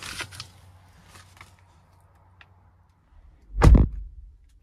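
Soft rustling and small clicks, then one heavy thump about three and a half seconds in as someone climbs into a pickup truck's cab.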